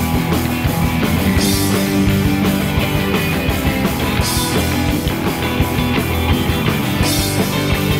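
Rock song in an instrumental passage: electric guitar played with a full band, with a burst of high noise about every three seconds.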